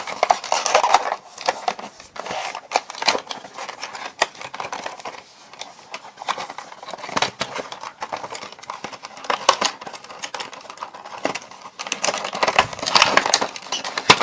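Packaging of a USB WiFi adapter being handled and pulled open: crinkling and rustling with many small clicks and snaps throughout.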